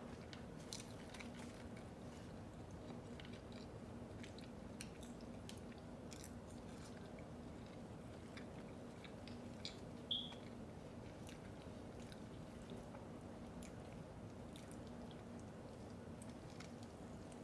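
A person chewing and biting into food close to the microphone, with faint wet clicks and small crunches over a steady low hum. A brief high-pitched chirp sounds once, about ten seconds in.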